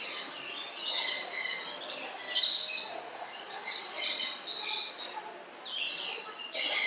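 Birds chirping, a series of short high calls coming and going.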